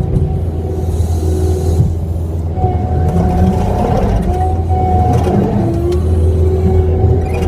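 Kubota skid steer's diesel engine running steadily under operation, with a steady whine above the engine drone that shifts in pitch briefly around the middle.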